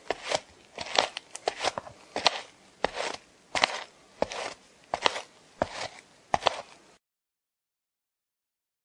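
Footsteps walking at a steady pace, each step a sharp scuffing strike, often heel then toe in quick succession. The steps cut off abruptly about seven seconds in.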